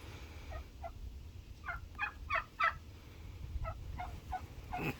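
Domestic turkeys calling: a scattered series of about ten short, high calls.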